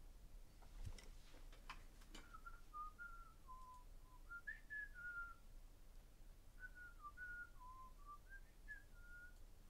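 A person softly whistling a tune, two short phrases of held notes stepping up and down in pitch. A few light clicks sound in the first couple of seconds.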